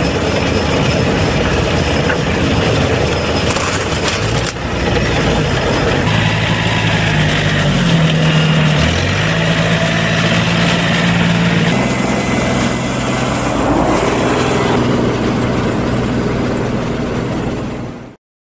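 Farm machinery running: a round baler-wrapper working with its tractor, then tractor and compact wheel-loader engines, one engine note dipping and coming back up about halfway through. The sound cuts off abruptly near the end.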